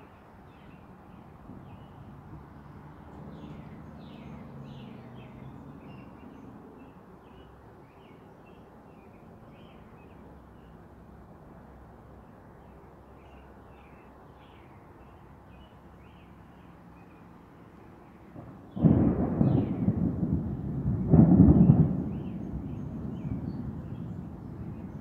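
Small birds chirping over a low background hush, then about nineteen seconds in a loud clap of thunder breaks in suddenly, swells again a couple of seconds later and rolls on as a lower rumble.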